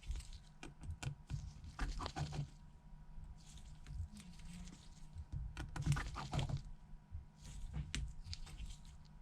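Faint, irregular little clicks and taps of a tri-point screwdriver working the tiny home button bracket screws in an iPhone 7 Plus, and of the screws being set down.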